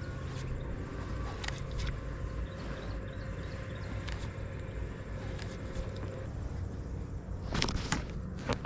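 Steady low wind rumble on the microphone, with scattered faint clicks and a few louder clicks or knocks near the end.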